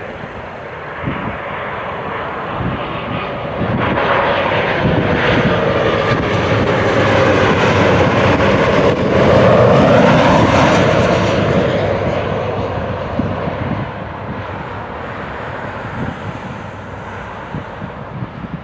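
Boeing 737-800's twin CFM56 turbofan engines on landing approach flying low past. The noise builds to its loudest about ten seconds in, with tones sliding down in pitch as it goes by, then fades as the jet moves away.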